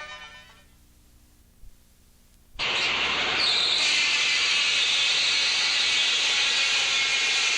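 Music fades out, and after a short lull a loud, steady hiss starts abruptly and carries on unchanged.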